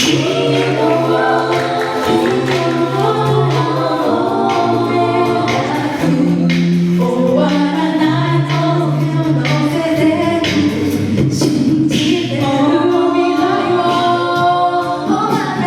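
A cappella vocal group singing sustained chords over a low bass voice that steps from note to note. Vocal percussion keeps a steady beat underneath.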